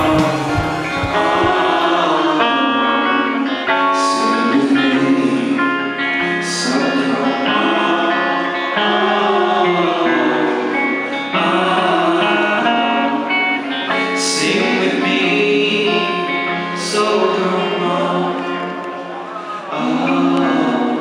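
Live band playing: a male voice singing over acoustic and electric guitars. A low thumping beat stops about two seconds in, leaving voice and guitars.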